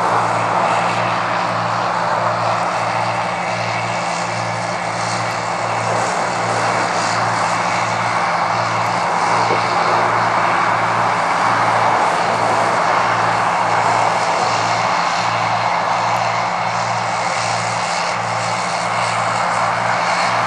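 Combine harvester working a corn field: a steady engine and machinery drone, with a low hum that pulses about one and a half times a second.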